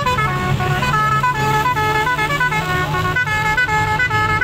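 A vehicle's musical horn playing a tune of short held notes, one after another without a break, over a running engine.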